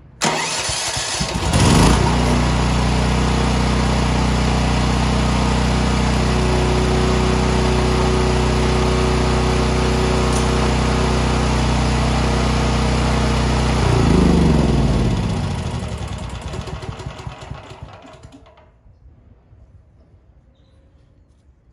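Champion 100296 dual-fuel portable generator's single-cylinder engine turned over by its electric starter, catching about two seconds in and running steadily on fresh synthetic oil as a test run after an oil change. About fourteen seconds in it is shut off, its pitch falling as it coasts to a stop over a few seconds.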